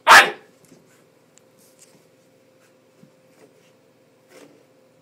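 Bull terrier puppy gives one short, loud bark at the very start, then faint scratching and light ticks as it paws and noses at a hair dryer on the carpet.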